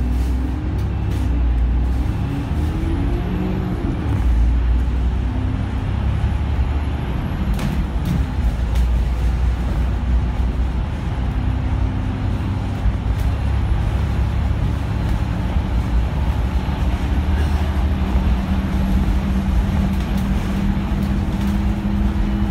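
Alexander Dennis Enviro500 MMC double-decker bus's diesel engine pulling uphill, heard from inside the bus as a steady low drone. Its pitch rises and falls between about two and four seconds in.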